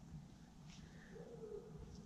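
Near silence: faint outdoor background with a faint tick and a soft brief sound in the middle.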